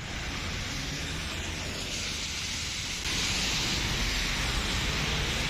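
Heavy rain falling, a steady hiss that gets louder about three seconds in.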